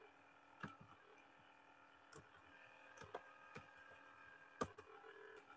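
Faint, scattered computer keyboard keystrokes and mouse clicks, about seven short taps spread over a few seconds, over quiet room tone.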